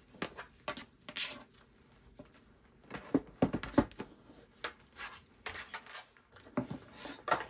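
Rigid Hermès cardboard box being handled and opened: scattered rustles and taps, a few dull knocks as it is set down on the table about three seconds in, then the lid being lifted off.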